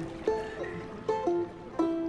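Background music: a tune of separate plucked-string notes, a few of them sounding one after another.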